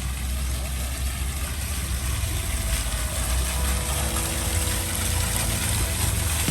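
Town street traffic: vehicle engines running with a steady low rumble.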